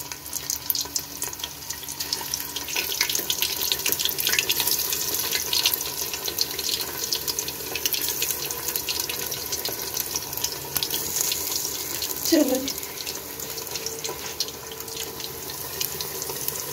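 Stuffed bitter gourds frying in ghee in an aluminium pot: a steady sizzle with fine crackling. A brief voice sounds about twelve seconds in.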